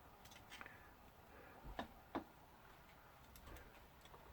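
Near silence with a few faint small clicks and taps, two a little louder about two seconds in, as the drone is turned and handled.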